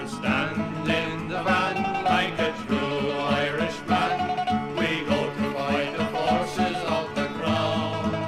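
Irish folk band playing an instrumental break between verses: quick, evenly picked string notes, with banjo and guitar, over a steady beat and bass line.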